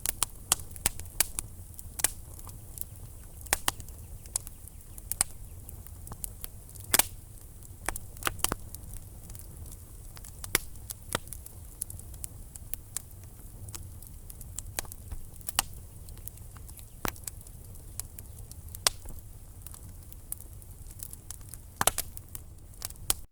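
Wood fire in a fireplace crackling: irregular sharp pops and snaps of burning logs over a low, steady rumble of the flames.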